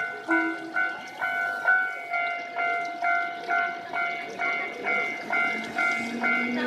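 Japanese railway level-crossing warning bell ringing steadily, about two strikes a second. A low rising whine begins near the end.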